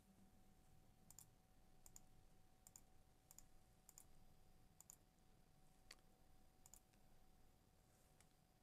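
Near silence with faint computer mouse clicks, each a quick double tick of press and release, coming every half second to a second, over a faint steady tone.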